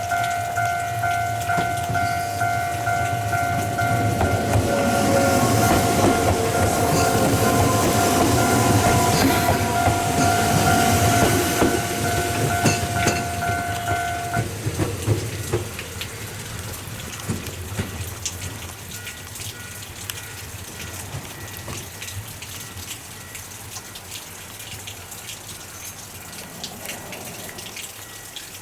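Ohmi Railway electric train passing a level crossing: a crossing alarm rings steadily while the wheels clatter over rail joints, loudest about five to twelve seconds in. The alarm cuts off suddenly about halfway through and the wheel clicks fade as the train moves away.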